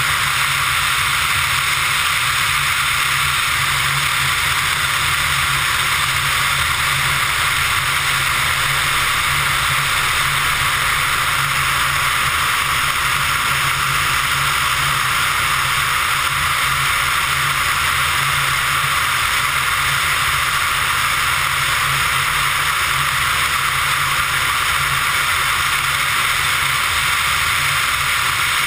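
Pipistrel Virus ultralight in cruise flight: a steady rush of wind over the microphone, with the low, even drone of the engine and propeller underneath.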